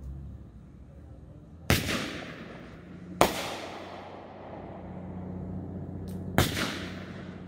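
Aerial fireworks going off: three sharp bangs, about two seconds in, a second and a half later and again near the end, each trailing off in a rolling echo.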